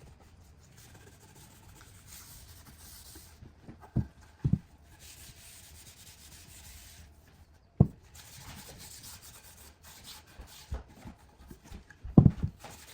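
Abrasive rubbing over a hardwood surface in long strokes of a second or two each, typical of hand-sanding timber. A few dull thumps fall between the strokes: two close together about 4 seconds in, one near 8 seconds, and the loudest near the end.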